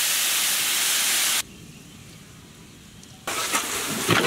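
Alcohol-removed red wine hitting hot oil in a large aluminium pot, hissing loudly with steam; the hiss cuts off abruptly about a second and a half in. After a quieter stretch the pot sizzles again near the end, with clicks and scrapes of a perforated metal skimmer stirring.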